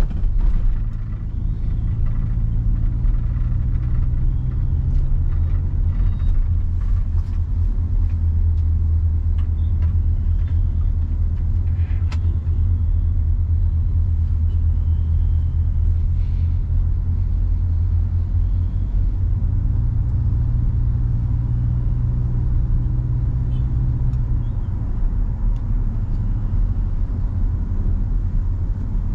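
Toyota Innova Venturer 2.0, a 2.0-litre four-cylinder petrol MPV, on the move: a steady low rumble of engine and road noise. The engine note rises for a few seconds about two-thirds of the way through.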